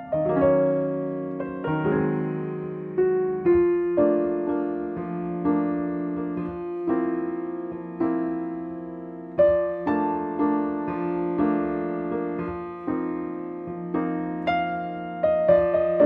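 Background piano music: a slow melody of single notes and chords, each struck and then fading away.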